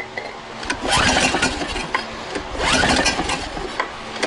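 Small generator engine being pull-started on its recoil cord, twice, each pull a loud whirring crank lasting about a second; the engine does not catch, a no-start after carburetor cleaner was sprayed in.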